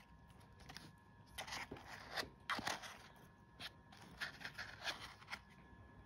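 Faint, irregular rustling and scraping of packaging holding live superworms as it is handled and opened, in scattered short bursts: a cluster about a second and a half in and more around four to five seconds.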